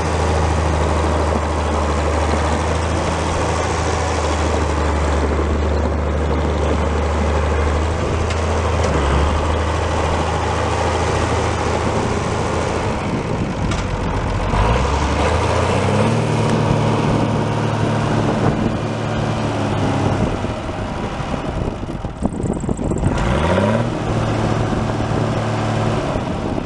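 International 686 tractor's 310 six-cylinder diesel engine running steadily at low speed, then revved up about halfway through and held at a higher speed. Near the end it eases off briefly and revs up again.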